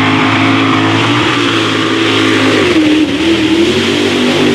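Mega truck's engine running loud at high revs while the truck churns through deep mud, holding a steady pitch, then sagging briefly about three seconds in before picking back up as it labours under the load.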